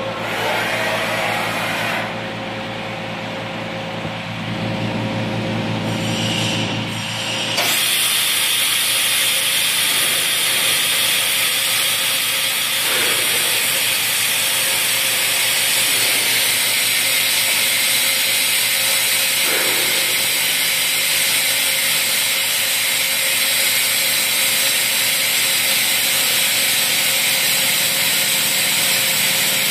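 Toshiba TMD-13 CNC vertical boring mill running: a steady low machine hum, then about seven and a half seconds in a loud, steady hiss with a high whine sets in suddenly and holds.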